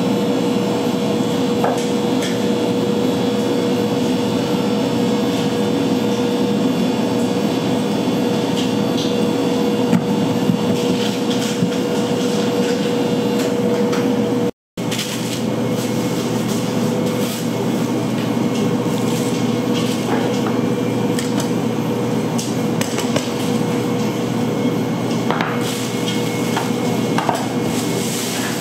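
Bakery kitchen ambience: a steady machine hum with one constant tone under a dense rumble, with scattered knocks and clicks from the work. The sound cuts out for a moment about halfway through.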